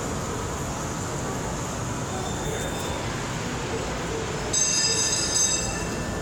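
Steady noisy hum of a model railroad exhibit hall, with a shrill, whistle-like tone lasting about a second some four and a half seconds in.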